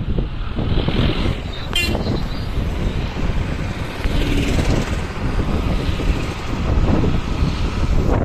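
Car driving along a road, heard from inside the cabin: a steady rumble of engine and tyres on the road. A brief rattle of quick clicks about two seconds in.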